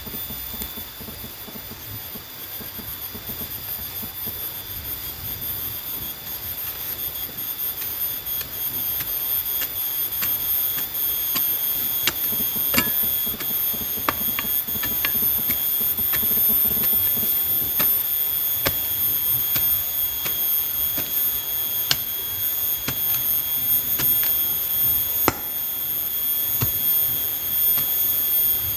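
Steady, high-pitched chorus of insects in the surrounding trees, slowly growing louder, with scattered sharp clicks and knocks that are strongest near the end.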